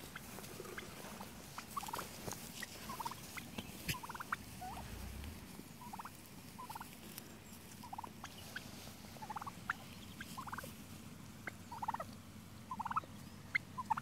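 Flock of heritage Black turkeys giving short calls, about a dozen spread through, some dipping in pitch at the end.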